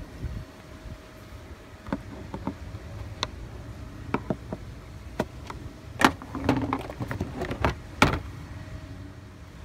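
Honda Odyssey's plastic engine cover being pried at and pulled loose by hand. It gives a string of short clicks and knocks, with the loudest two about six and eight seconds in as the cover comes free.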